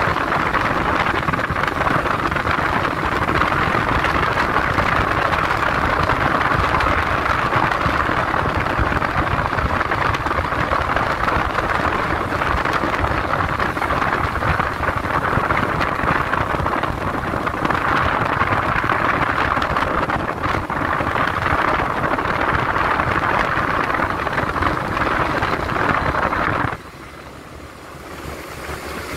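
Steady rush of wind and road noise from a BMW touring motorcycle riding at speed, with heavy wind on the microphone. Near the end it drops suddenly to a much quieter low hum.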